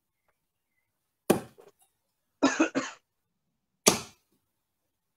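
Two darts striking a bristle dartboard, each a single sharp thud about two and a half seconds apart. Between them is a brief two-part sound that comes through at lower quality.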